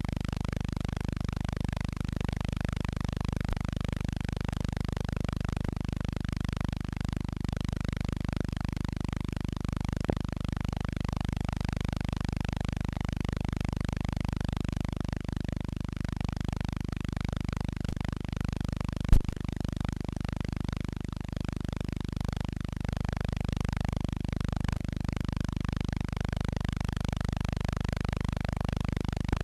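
Steady low hum with faint hiss: the noise of a silent film's transfer, with no recorded sound. A small click about ten seconds in and a sharper, louder click a little before twenty seconds.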